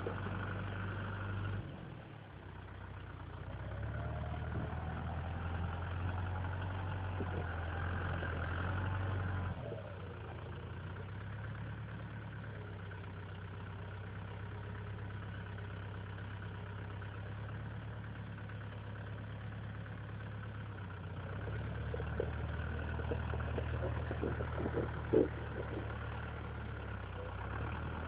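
Farm tractor's diesel engine running under load during snow clearing, louder for two stretches as it works, with a short sharp knock about 25 seconds in.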